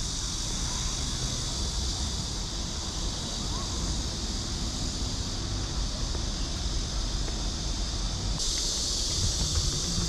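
Steady high-pitched insect buzzing, with a low rumble underneath. The buzzing grows louder about eight seconds in.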